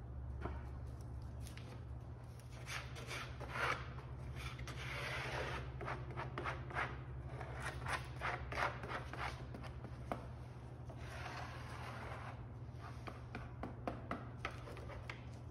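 Notched plastic glue spreader scraping and rubbing across thin white oak strips, spreading wood glue in two runs of short strokes with a brief pause between them. A steady low hum runs underneath.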